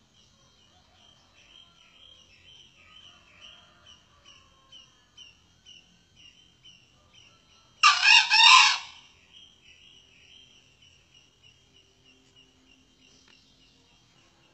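A male junglefowl crows once, about halfway through: a single loud, hoarse crow of about a second in three quick pulses. Behind it, faint high chirping repeats about twice a second.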